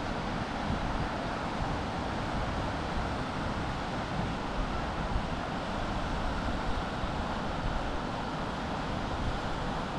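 Steady rushing of a fast white-water river, with wind buffeting the microphone as a fluttering low rumble.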